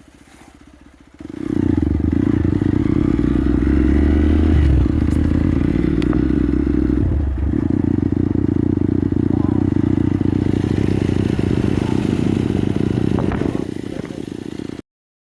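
Motorcycle engine running while riding, jumping up loud about a second in as the throttle opens, with a short dip and change in pitch around seven seconds in, as at a gear change. The sound cuts off abruptly near the end.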